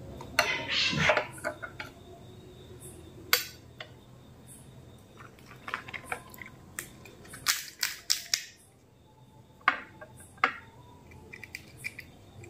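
Hand-handling of crisp phuchka (pani puri) shells, a string of sharp clicks and crackles as they are picked up and cracked open with the fingers. A short metal spoon scrape and clink in a bowl comes about half a second in.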